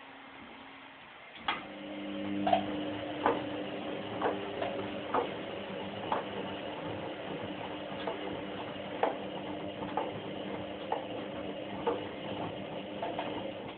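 White-Line VW1447A4 washing machine in its prewash: the drum motor starts with a click about a second and a half in and turns the drum with a steady hum, with irregular clicks and knocks throughout, then stops near the end.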